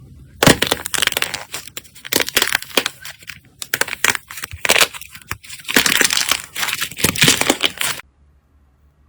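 Crunchy slime being crushed and worked, a dense run of crackling, crunching pops that stops suddenly about eight seconds in.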